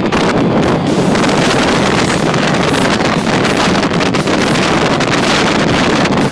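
Wind rushing and buffeting over the microphone of a speedboat running at speed, with its Yamaha 250 outboard and the water under the hull mixed into a steady, loud rush.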